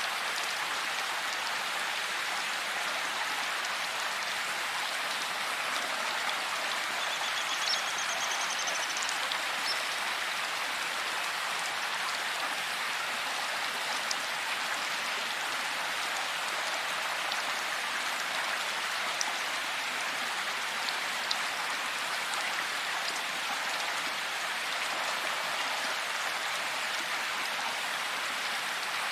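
Steady heavy rain falling in a forest, an even hiss of drops with an occasional single louder drop tick. A faint, brief high-pitched call shows through about seven seconds in.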